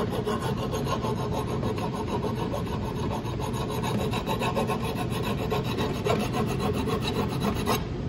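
A metal pressure washer quick-connect plug being rubbed back and forth along a flat hand file in rapid, repeated rasping strokes. This is filing off a barb, raised metal left on the plug that keeps the quick connect from coming apart. The filing stops abruptly shortly before the end.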